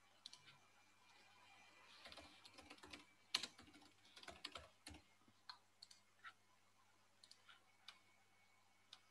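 Faint typing on a computer keyboard: a quick run of keystrokes in the first half, thinning out to a few scattered taps and clicks.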